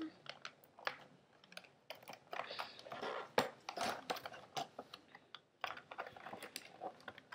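Scissors snipping at packing tape on a cardboard toy box, with irregular sharp clicks and the rustle and scrape of the box being handled.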